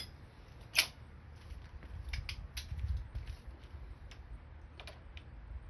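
Scattered light metal clicks and clinks of hand tools being handled on a motorcycle's front axle, with one sharper click about a second in.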